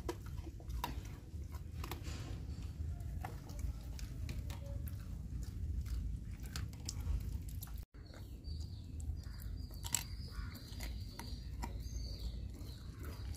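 A dog chewing and crunching hand-fed food, with irregular sharp clicks of the bites over a steady low rumble.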